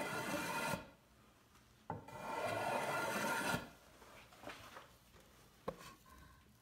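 Block plane cutting a chamfer along the edge of a softwood board: one stroke ending under a second in, then a longer stroke of about a second and a half that starts with a click, each a dry scraping hiss of shavings being sliced off. A few light knocks follow, the sharpest near the end, as the plane is lifted and handled.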